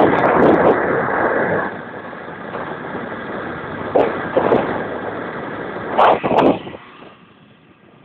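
A motor vehicle running, with a few sudden louder bursts of noise; the sound falls away sharply about seven seconds in.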